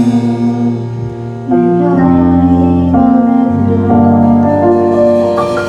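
Keyboard in a piano sound playing slow held chords that change about once a second, the closing bars of a band arrangement of a pop ballad, with a bright high note near the end.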